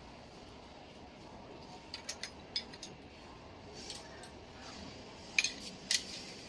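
A few sharp metallic clicks and clinks of hand tools working on an engine, spaced out, with the two loudest near the end.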